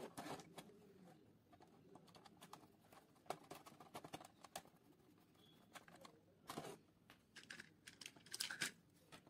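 Faint, scattered clicks and taps of a metal screwdriver and fingers handling the open plastic housing of a toy puppy coin bank, with a few sharper clicks among them.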